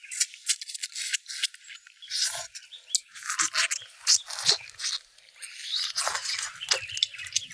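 Close-miked eating sounds: chewing and gnawing on braised pig trotters, a dense run of irregular crunching and scraping clicks.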